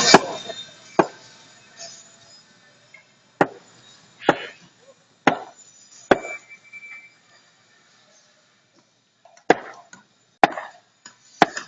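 Irregular hammer blows on a construction site, about eight sharp strikes spaced one to four seconds apart.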